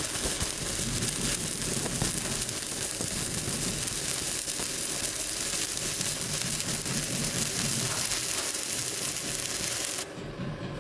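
Electric arc welding: the arc crackles and sizzles steadily, then cuts off suddenly near the end as the weld is broken off.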